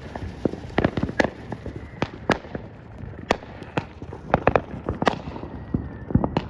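Fireworks going off in a string of sharp, irregular cracks and pops, about two a second.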